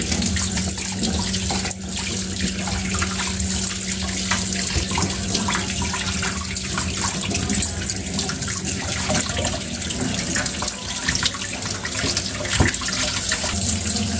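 Kitchen tap running steadily into a stainless steel sink while raw chicken pieces are rinsed by hand in a steel bowl, the water splashing over hands and meat. A steady low hum runs underneath.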